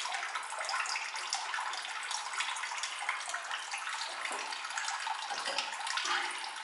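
Water running from a tap and splashing, a steady hiss with small irregular ticks.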